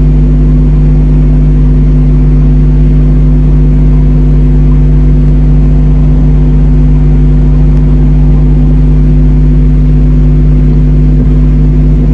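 Loud, steady electrical hum: a low drone with several fixed tones stacked above it that never changes.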